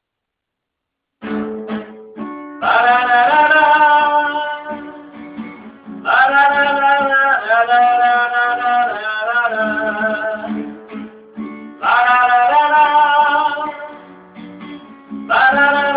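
Instrumental introduction of a song with guitar, starting about a second in, its held melody notes in phrases of a few seconds.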